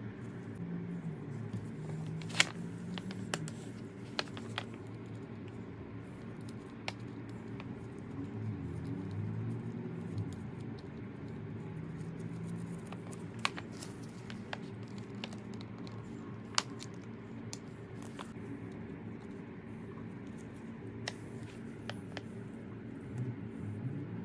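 Sharp metal clicks and clinks, spaced irregularly a few seconds apart, as the handwheel and screw of an Atlas lathe tailstock are handled and fitted together, over a steady low hum.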